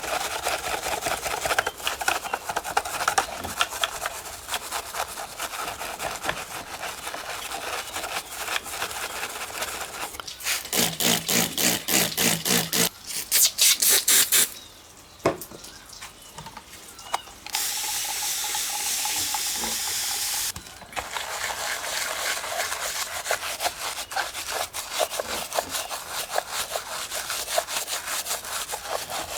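Brushing and rubbing on a small model car. Rapid scratchy scrubbing strokes, with a stretch of strong, even strokes at about four a second, and a few seconds of steady water spray or rinsing past the middle.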